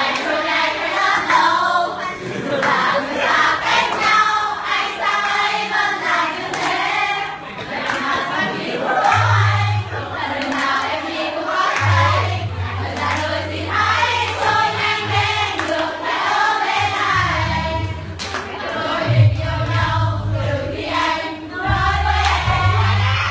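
A group of voices singing a song together, with a deep steady bass part coming in about nine seconds in.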